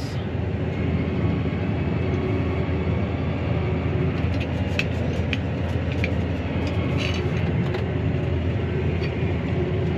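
Claas Arion 650 tractor's six-cylinder diesel engine running steadily under load, heard from inside the cab while it drives over a grass silage clamp to compact it. A few light clicks come about halfway through.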